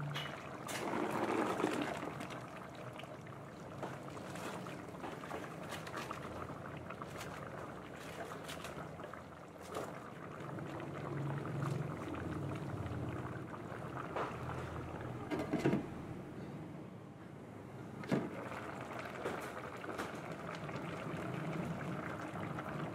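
Tomato-based chicken stew simmering and bubbling in a stainless steel wok, with a few sharp knocks and rustles as green beans and cabbage leaves go into the pan. Near the end a thick sauce pours in.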